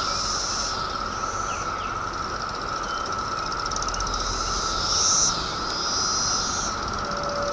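Chorus of Brood II periodical cicadas: a steady drone at one constant pitch, with higher buzzing calls that swell and fade over it, the loudest swell about five seconds in.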